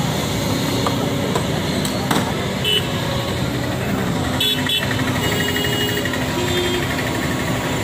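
Kobelco excavator running steadily while knocking down a concrete arch, with a few sharp knocks and several short vehicle-horn toots in the middle.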